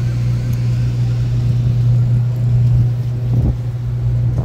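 Steady, loud low hum of a moored boat's running machinery.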